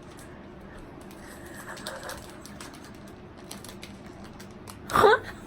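Quiet room tone with a faint steady hum, then a short, high voice-like sound near the end.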